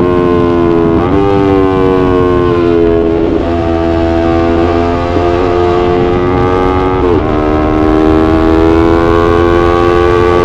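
Yamaha YZF-R3 parallel-twin engine pulling hard under way, a loud steady engine note. About seven seconds in it drops in pitch at a gear change, then climbs slowly as the bike accelerates. A low wind rumble lies underneath.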